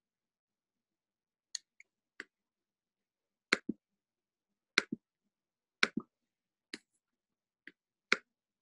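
About a dozen sharp clicks of a computer mouse spaced a second or so apart, several coming in quick pairs like double-clicks.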